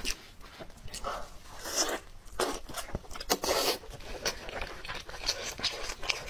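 Close-up eating sounds of kiln-roasted chicken: chewing and lip smacks with irregular sharp clicks, and short rustling tears as the meat is pulled apart by plastic-gloved hands.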